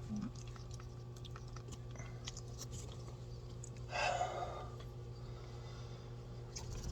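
A pet eating syringe-fed food, with soft chewing and small wet mouth clicks, over a steady low hum. There is one short breathy puff about four seconds in.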